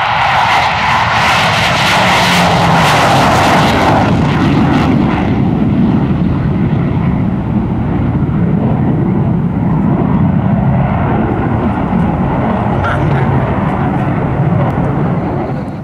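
Twin jet engines of an F/A-18 Hornet just after lift-off: a loud, rushing hiss for about the first five seconds. Then a deeper, steady jet sound from a fighter jet flying overhead, which cuts off suddenly at the very end.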